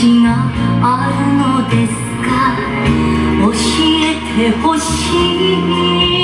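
A song playing: a singing voice over instrumental backing, with held notes and a flowing melody.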